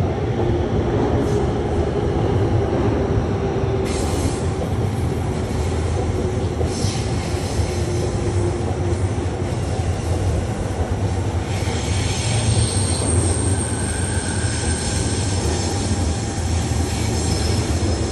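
Commuter train running on the tracks: a steady rumble of wheels and motors. A thin high wheel squeal joins about twelve seconds in.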